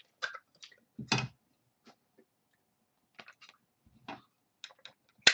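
Trading cards and a plastic magnetic one-touch card holder being handled: scattered light clicks and taps, a duller knock about a second in, and a sharp snap near the end as the holder closes.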